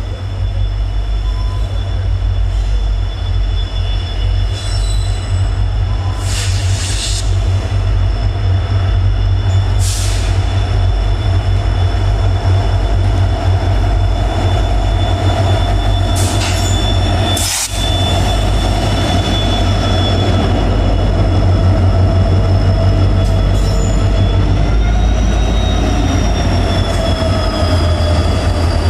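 Freight train rolling past: a steady low rumble of wheels on rail, with high, held wheel-squeal tones and a few short screeches.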